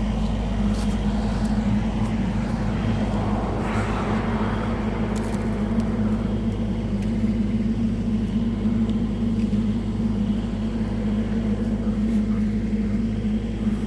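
An engine running steadily at an even pitch, with a brief rush of higher noise about four seconds in.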